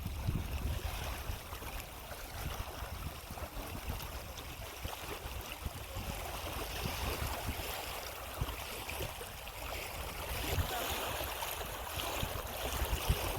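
Water gurgling and swishing along the hull of a rowing boat moving across the lake, with wind rumbling on the phone's microphone.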